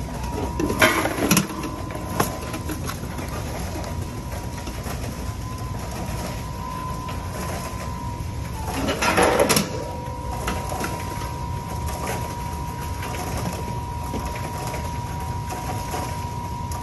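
BatchMaster IV five-gate belt-feed counting machine running with a steady hum and a thin whine. A louder rattling rush comes about a second in and again around nine seconds in, about eight seconds apart, fitting a counted batch of candy bars dropping through the gates at eight batches a minute.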